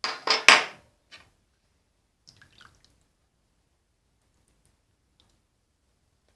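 Wet splashes and plops of sauce being tipped into a bowl of broth: three quick loud ones at the start, the loudest about half a second in, then a few faint drips.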